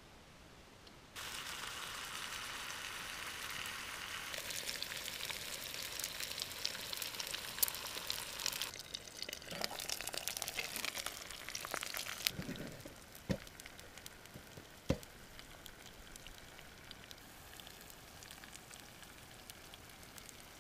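Eggs frying in a small frying pan on a camp stove, a steady crackling sizzle that starts suddenly about a second in. The sizzle fades to a faint hiss after about twelve seconds, with two sharp knocks soon after.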